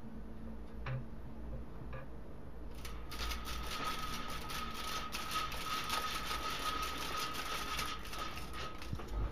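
Window-blind slats rattling in a rapid clatter as a cat paws and tugs at them, starting about three seconds in after a few faint clicks.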